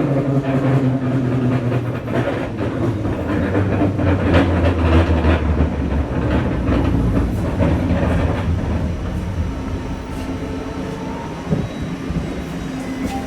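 Scarborough RT light metro car running on its track, heard from inside: a steady rumble with repeated clicks of the wheels over rail joints. A low hum swells in the middle and then eases off.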